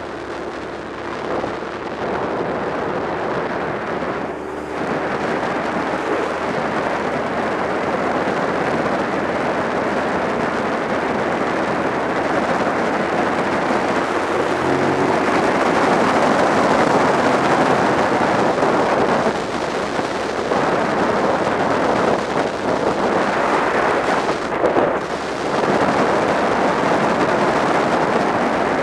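Wind rushing over the microphone of a motorcycle at road speed, with the motorcycle's engine running underneath. The rush grows louder over the first half or so and dips briefly a few times.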